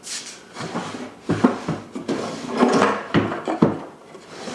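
Wooden toolbox drawers sliding open and shut, with several sharp wood-on-wood knocks between about one and four seconds in.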